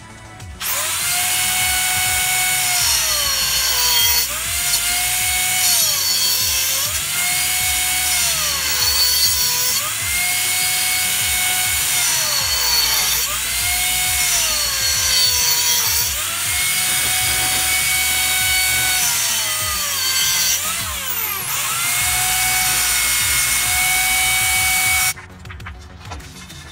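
Corded high-speed rotary tool cutting through a metal closet rod. It gives a steady high whine whose pitch sags every couple of seconds as the tool is pressed into the metal and recovers between cuts. It starts about a second in and cuts off suddenly near the end.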